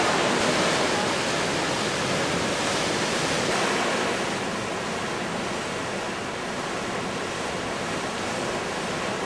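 Steady rushing hiss of water and wind on a cruise ship's open deck, with no distinct events, easing slightly after about four seconds.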